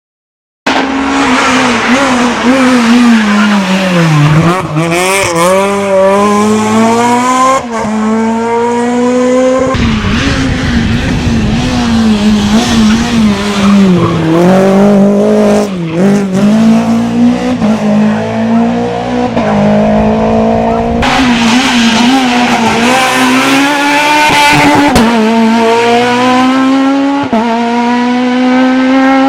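Rally car engines at full throttle on a stage. Each engine note climbs through the revs, then drops sharply at gear changes and when the driver lifts for corners. The sound jumps abruptly to a different car or passage about ten seconds in and again about twenty-one seconds in.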